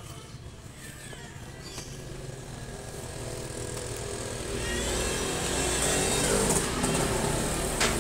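A motor vehicle engine, getting steadily louder from about halfway in, with a short sharp click near the end.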